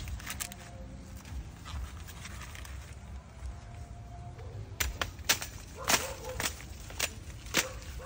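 Corn husks faintly rustling, then, from about five seconds in, a blade chopping corn stalks in sharp regular strokes, about two a second.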